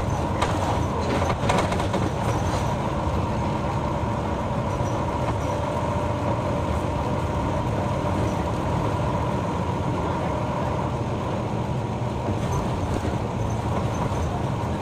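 City route bus running, with a steady drone of diesel engine and road noise. There are a few sharp clicks in the first two seconds.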